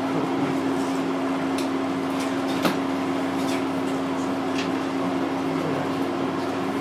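Steady machine hum holding one low pitch, with faint light taps of a stylus on a tablet screen scattered through and one sharper click about two and a half seconds in.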